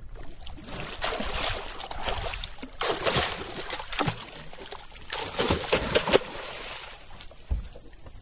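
A hooked tuna thrashing at the surface right against the boat's hull, throwing up water in several rough bursts of splashing with sloshing in between.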